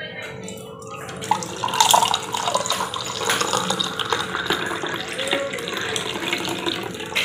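Juice poured in a steady stream from a steel pot into a glass tumbler, splashing into the liquid as the glass fills; the pour starts about a second in.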